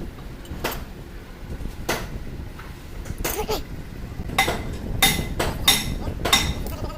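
Metal tools and gearbox parts knocking and clinking against each other, in irregular sharp strikes. Several of the strikes ring briefly, and they come louder and closer together in the second half.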